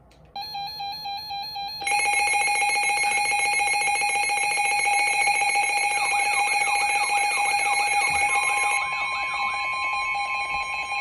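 Emergency alert attention tones ahead of a severe thunderstorm warning. A fainter electronic tone comes in after about half a second and turns into a loud, steady alarm tone about two seconds in. A repeating warbling sweep runs over it midway, and a second steady tone joins near the end.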